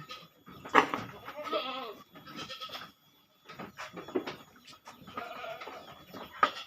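Goats bleating, several wavering calls one after another, with a few sharp knocks in between.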